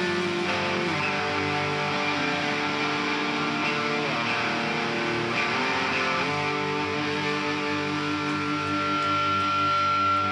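Live hardcore band's distorted electric guitars and bass holding ringing chords that change every couple of seconds, with no vocals. A single high, steady feedback tone comes in about eight seconds in.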